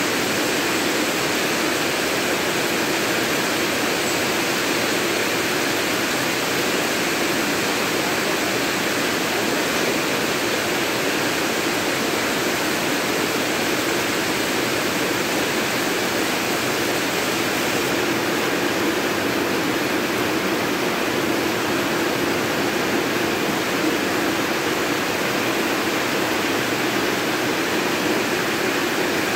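Heavy rain pouring steadily onto a corrugated metal roof and the ground around it.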